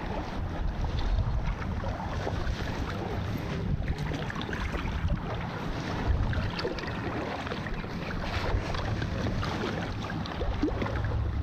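Wind rumbling on the microphone over lake water lapping against shoreline rocks. Partway through there is splashing as a hooked tilapia is drawn in at the surface.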